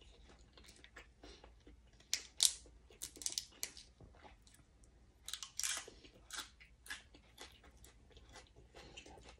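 Close-miked eating sounds: chewing and crisp crunching of fresh raw leafy greens. There is a run of short crunches between about two and seven seconds in.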